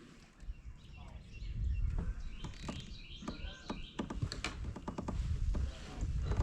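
Small birds chirping in quick repeated notes, over a low rumble, with a few sharp knocks.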